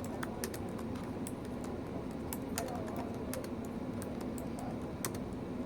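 Typing on a MacBook Pro laptop keyboard, one-handed: an irregular run of key clicks that thins out near the end.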